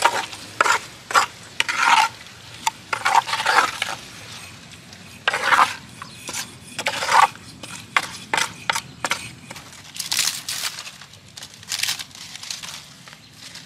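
Wooden spatula stirring and scraping raw frogs in a wet chilli marinade inside a clay pot: irregular squelching scrapes and knocks against the pot.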